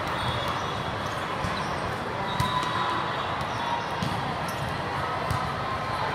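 Volleyballs being struck and bouncing on the court floor, a few scattered knocks over the steady din of a busy tournament hall.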